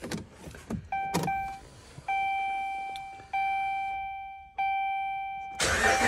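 Dodge Ram 1500's instrument-cluster warning chime dinging about four times, roughly a second apart, each ding fading away, with the key switched on and the engine not yet running. Near the end a rising rush of noise as the engine is started.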